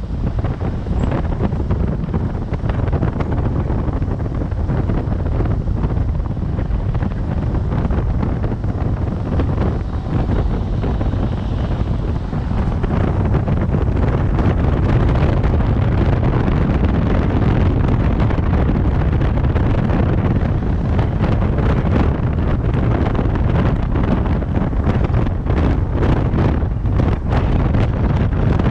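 Wind buffeting a GoPro action camera's microphone: a loud, steady low rumble that grows a little stronger about halfway through, with street traffic mixed in underneath.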